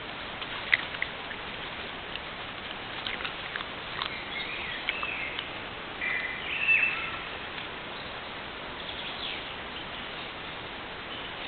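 Scattered short bird chirps and calls over a steady hiss from a trail camera's microphone, with a sharp tick about a second in and the loudest calls past the middle.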